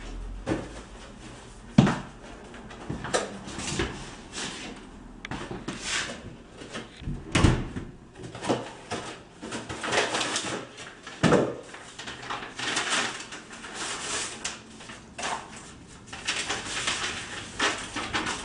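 A front door shuts with a single sharp knock about two seconds in. It is followed by paper and packaging rustling in irregular strokes as a parcel is opened and a letter is taken out.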